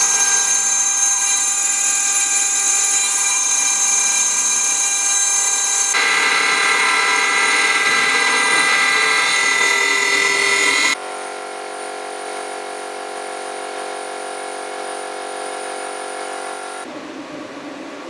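CNC 6040 router's spindle running at high speed while a 2 mm carbide end mill cuts aluminium: a loud, steady whine made of several tones. The tone pattern changes abruptly about six seconds in, and around eleven seconds in the sound drops quieter to a lower-pitched steady whine, changing once more near the end.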